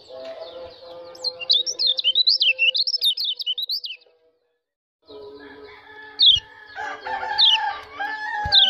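A caged white-eye (pleci) singing: a fast, warbling run of high chirps, then, after a silent break of about a second, a few sharp descending chirps. Two brief low knocks come in the second half.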